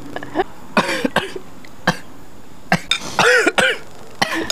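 A person coughing in several short bursts, with throat clearing, from the chilli heat of spicy noodles.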